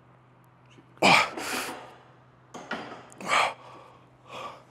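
A man gasping for breath and coughing hard, about five sharp noisy exhales starting about a second in, out of breath from a heavy lifting set.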